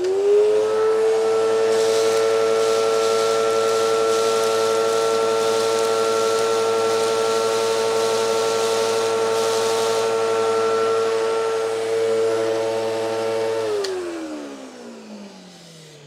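Eureka Whirlwind bagless vacuum cleaner's Victory motor switched on, whining up to speed and running steadily while shredded paper is sucked in with a rushing hiss. About 14 seconds in it is switched off and winds down, its whine falling in pitch.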